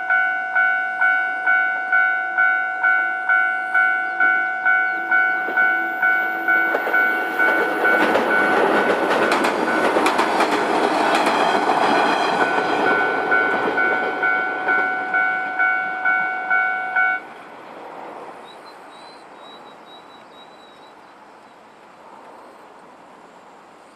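Japanese level-crossing warning bell ringing in even strikes, a little under two a second, while a JR Wakayama Line train passes over the crossing. The train's rush of wheel and rail noise swells about eight seconds in and fades over some six seconds. The bell cuts off suddenly about seventeen seconds in.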